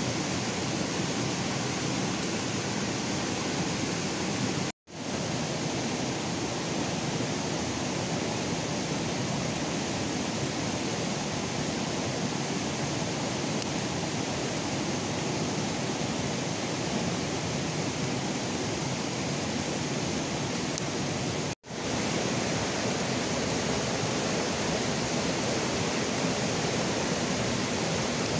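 Steady rushing of a rocky river's flowing water. The sound cuts out completely for an instant twice, about five seconds in and again about twenty-two seconds in.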